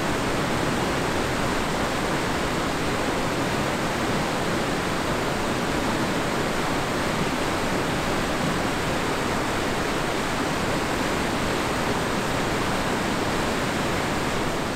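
Steady rushing of a fast-flowing mountain river, an even roar of water with no breaks.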